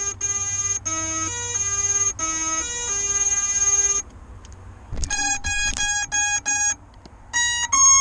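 An FPV quadcopter's brushless motors playing their electronic speed controller (ESC) power-up tones: a short stepping tune of pitched beeps, then a run of about seven quick equal beeps, and rising beeps near the end. These are the start-up and ready signals heard when a flight battery is plugged in.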